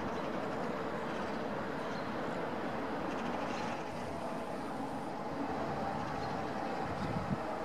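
DB class 111 electric locomotive and its double-deck coaches rolling slowly through the station tracks: a steady train rumble with a constant hum, and a couple of knocks near the end.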